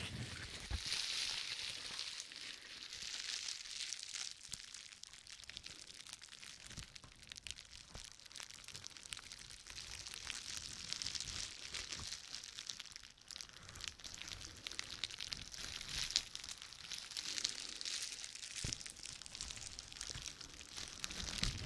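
Bubble wrap being crinkled and rubbed close to the microphone: a continuous crackly rustle with fine clicks, and a few sharper clicks near the end.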